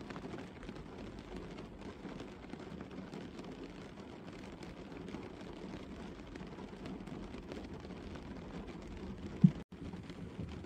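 Gentle rain falling steadily on a car's roof and bonnet, heard from inside the car as a dense patter of fine drops. Near the end, one short loud low thump, followed by a split-second gap in the sound.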